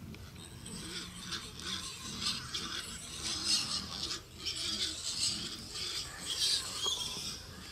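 Wild hogs rooting and moving through pine-needle litter: an uneven rustling that comes and goes, loudest in short patches.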